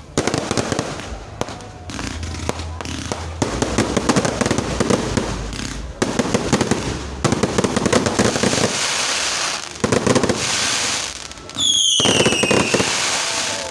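Fireworks going off: dense, rapid crackling and popping throughout. A high whistle falls in pitch near the end.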